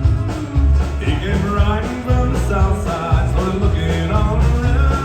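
A country band playing a steady, driving beat, with a strong pulsing bass and a melodic line over it.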